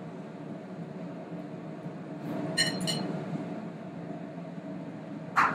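Metal utensils clinking against a plate and pans, a couple of short ringing clinks about two and a half seconds in and a louder clack near the end, over a steady hum of kitchen fans.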